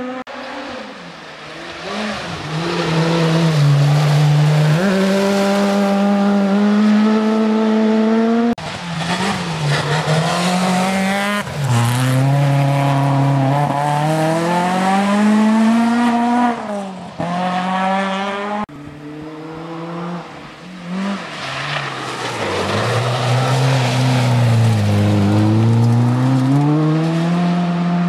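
Rally cars running hard through a bend one after another. The engine note drops as each car brakes and changes down, then climbs as it accelerates away. The sound changes abruptly twice as the next car comes in.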